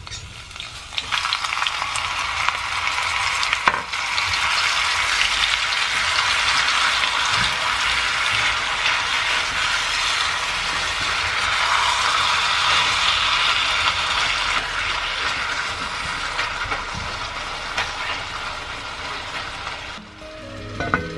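Raw ground beef with chopped garlic frying in a hot pot: a steady sizzle that starts about a second in as the meat goes in, with a spoon stirring it.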